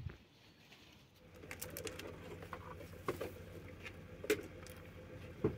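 Knocks and thumps of items being loaded into a car's back seat, the sharpest about three-quarters of the way through, over a steady low hum.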